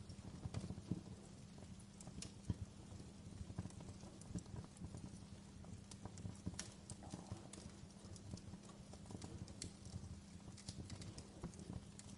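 Campfire burning with a constant low rustle and frequent sharp pops and crackles of burning wood, several of them louder than the rest.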